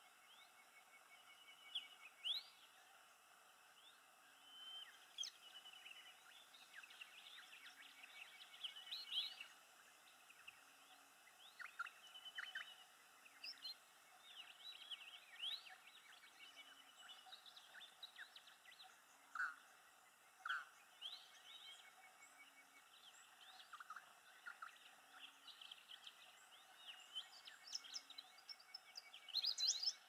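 Faint wild birdsong from several birds: scattered short chirps and quick whistled notes sliding up and down, with a thin rapid trill, and a busier flurry of chirps near the end.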